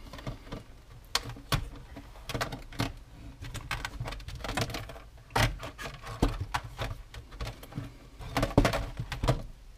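Handling noise on an RC car's hard plastic body: a string of irregular clicks and taps as hands work a black strip off the roof, with a few louder knocks about halfway through and near the end.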